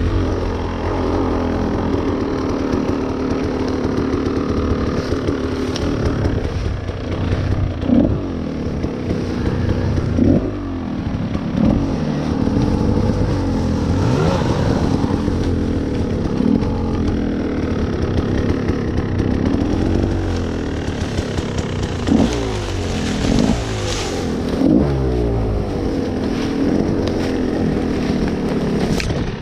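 Dirt bike engine working slowly through rough woods, its revs rising and falling as the throttle is blipped, with several sharp rev rises along the way.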